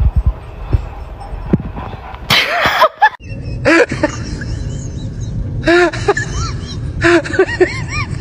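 A short rushing noise burst a little after two seconds in, then a small dog giving runs of short yelps that rise and fall in pitch, coming in groups of two to four.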